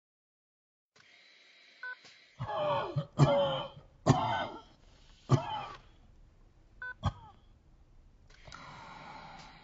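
A hospital patient monitor beeps twice, and between the beeps a man coughs and clears his throat in several harsh bursts.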